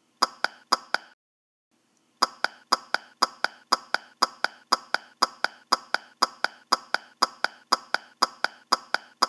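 Sharp clicks at a steady rate of about four a second: a short run of four, a pause of about a second, then an unbroken run.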